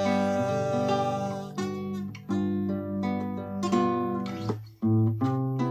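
Instrumental break in a slow Latin ballad: acoustic guitar strumming and picking a chord progression over a sustained low bass line, with no singing.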